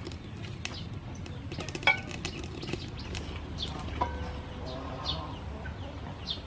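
Birds chirping in short, falling high notes, with scattered clicks and a low steady rumble. About four seconds in, a metal wok lid is handled and gives a short ringing clink.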